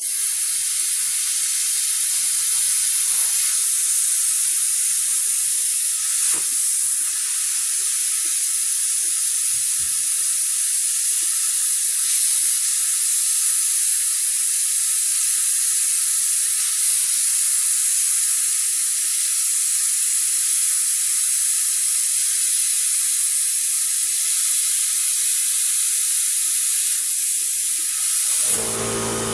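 Warfox plasma cutter torch running, a loud, steady hiss of air and arc that starts suddenly and stops suddenly about half a minute later.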